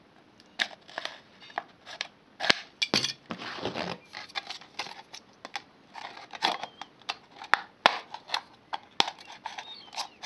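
Scissors snipping through the thin wall of a plastic Coke bottle, a run of sharp irregular snips and clicks with the plastic crackling, and a longer rasping cut about three seconds in.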